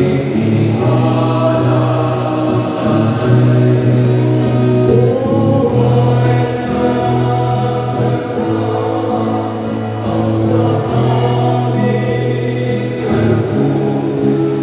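A choir singing a slow hymn, holding long notes and changing pitch every second or two.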